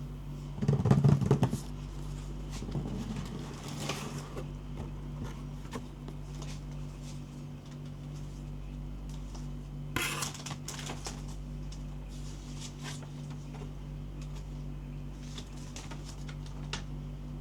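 Unboxing handling noise: a rustle about a second in, scattered clicks and light knocks of hard parts and packaging being handled, and one sharper knock about ten seconds in, over a steady low hum.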